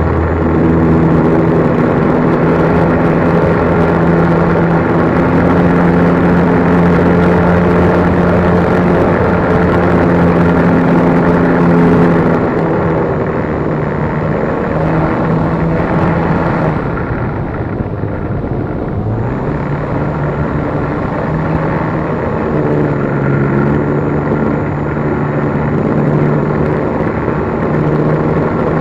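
An RC plane's motor and propeller running, heard close up from a camera mounted on the plane, with rushing air noise. The pitch steps up and down with the throttle, and the sound eases off for a couple of seconds past the middle before the power comes back on.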